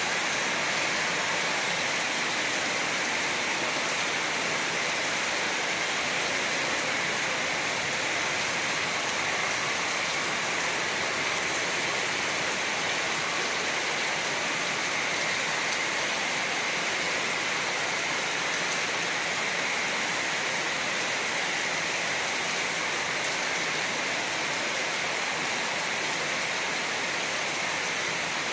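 Steady, even rain falling: a continuous hiss with no distinct drops or thunder standing out.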